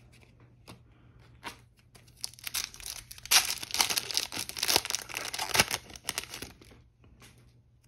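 Foil wrapper of a Yu-Gi-Oh! Battle Pack 3 booster pack being torn open by hand, a dense crinkling and tearing that is loudest about three to five seconds in and dies away near the end. A few light card-handling clicks come before it.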